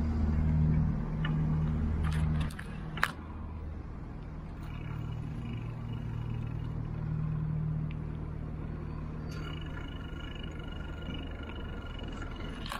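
A motor vehicle's engine running nearby: a low, steady hum that is loudest for the first two and a half seconds and then drops to a weaker level. There is one sharp click about three seconds in.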